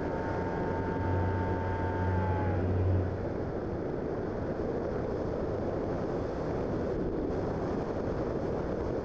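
Model flying wing's motor and propeller running with a steady whine and low hum, winding down about three seconds in. Only wind rushing over the microphone remains after that.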